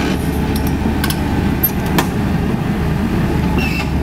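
CAT 320D hydraulic excavator's six-cylinder diesel engine running steadily as the machine travels on its crawler tracks, a loud low rumble with a few short clicks.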